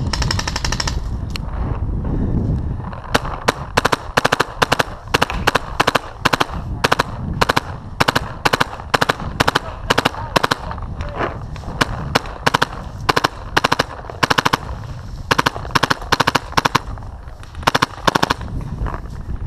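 Paintball marker firing rapid strings of sharp pops, several shots a second, in bursts with short pauses from about three seconds in until near the end.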